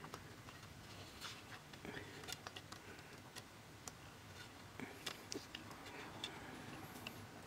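Faint, irregular small clicks and scrapes of a screwdriver turning small screws as a graphics card's fan shroud is screwed back on.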